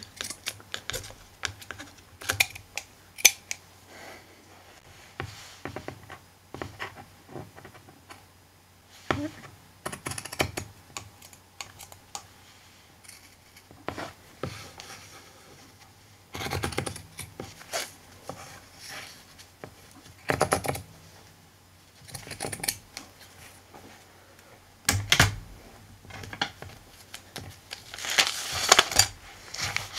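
Scissors snipping through fabric in short, irregular cuts, mixed with the rustle of cloth and paper being handled. A longer, louder rustle comes near the end as the fabric is smoothed by hand.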